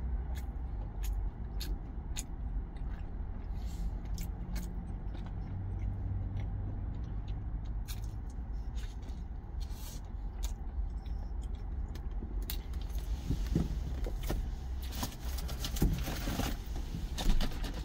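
Steady low rumble of an idling truck cab, with soft clicks and crinkles of a sandwich being eaten and its clear plastic box handled; in the last few seconds there is louder rustling and scraping.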